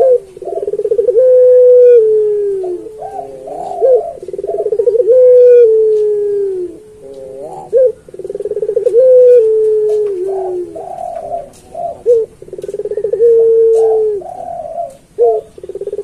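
Puter pelung, a long-voiced domestic ringneck (Barbary) dove, cooing over and over. Each coo opens with a fast rolling quaver and stretches into a long, slightly falling note.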